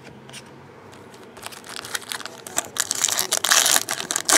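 Crinkling and tearing of a trading-card pack's foil wrapper being ripped open, starting about a second and a half in and getting loudest near the end.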